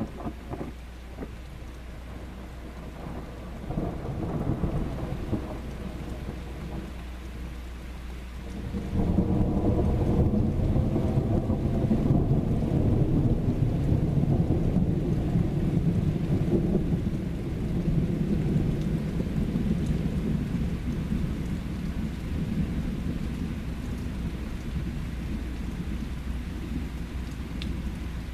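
Thunder rumbling over steady rain. A rumble builds about four seconds in, then a long, louder rumble starts about nine seconds in and slowly fades away.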